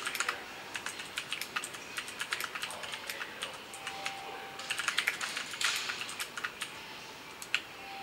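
Typing on a Ducky G2 Pro mechanical keyboard with clicky Cherry MX Blue switches: a quick, irregular run of sharp key clicks. Both Shift keys are held down while a sentence is typed, as a test of n-key rollover.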